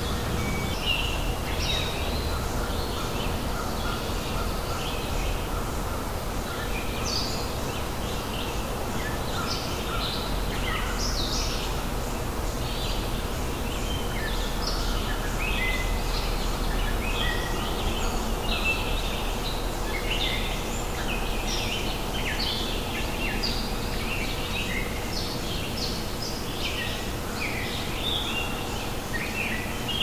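Many small birds chirping in overlapping short calls over a steady low background noise, like a nature ambience.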